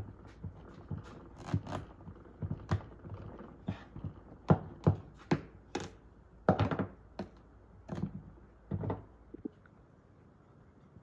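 Large kitchen knife chopping into a whole pumpkin, the blade crunching through the hard rind and knocking against a wooden cutting board in a run of irregular sharp thunks. The chopping stops about nine seconds in.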